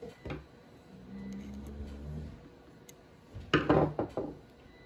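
Handling noise of small tools: two light clicks at the start, a faint low hum for a second or so, then a short burst of sharp clicks and clatter about three and a half seconds in.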